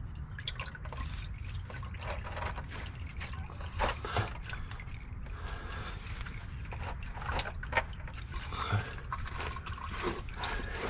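Engine oil dripping irregularly into a drain pan from the oil filter of a Duramax diesel, which has just been broken loose for an oil change.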